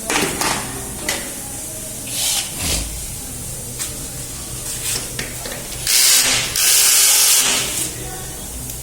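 Short hissing spray bursts, a brief one about two seconds in and a louder one lasting about a second and a half near six seconds, over a steady low hum.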